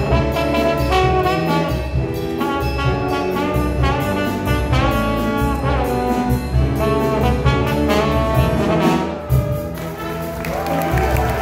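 High school jazz big band playing live, brass-heavy, with trombone and trumpets prominent over saxophones, bass and drums. The band thins out near the end.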